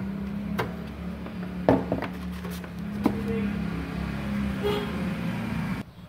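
Low, steady hum of a running motor, broken by several sharp clicks, which cuts off abruptly near the end.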